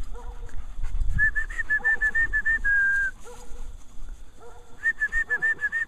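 A person whistling to call a dog back: a quick run of short, high notes at one pitch ending in a long held note, about a second in and again near the end.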